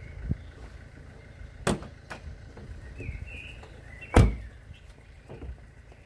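Steady low outdoor rumble with two sharp knocks, the louder one about four seconds in, and a few faint high chirps just before it.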